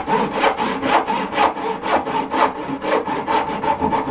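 Dovetail backsaw cutting down into the end of a wooden board held in a vise, in steady back-and-forth strokes about two a second.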